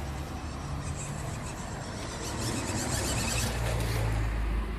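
Electric RC truck running across grass, with a low rumble that grows louder in the last second or two.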